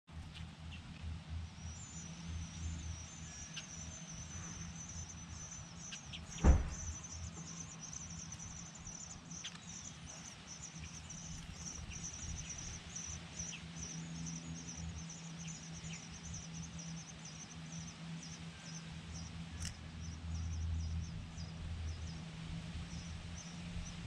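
Nestling birds inside a birdhouse giving a long run of rapid, high-pitched begging chirps, over a steady low hum. One sharp knock sounds about six seconds in.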